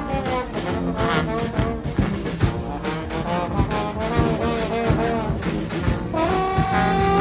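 Guggenmusik brass band playing loudly at close range: sousaphones, trombones and trumpets over a steady beat of bass drum and snare drums. About six seconds in, the band swells into a long held chord.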